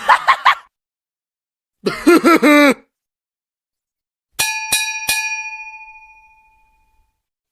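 A short comic sound effect made of a voice-like burst of several quick rising-and-falling pitches, then three quick metallic ding strikes that ring on and fade out over about two seconds.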